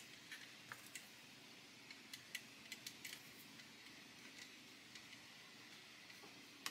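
Near silence with faint, scattered small clicks as fingers handle and fit tiny plastic model kit parts, the clicks falling mostly in the first half.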